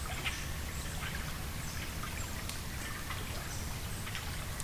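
Small water sounds: scattered drips and light ticks of trickling water over a steady low rumble.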